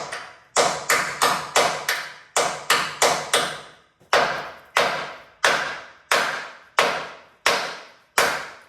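Hammer blows on steel, driving torch-cut rusty bolts out of a truck frame, with about sixteen strikes that each ring briefly. They come quickly, about three a second, for the first four seconds, then slow to roughly one strike every 0.7 seconds.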